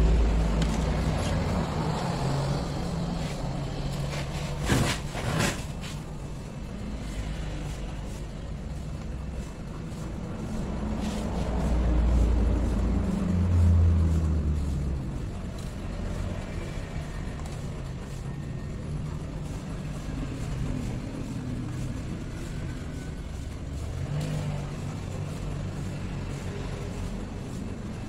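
Road traffic passing: a low engine rumble that swells and fades a few times, loudest near the middle. Two sharp clicks about five seconds in.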